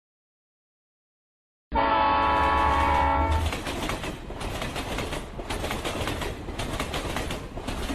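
Train sound effect: about two seconds in, a train horn blows loudly for a second and a half, then the steady clatter of a train running on the tracks carries on.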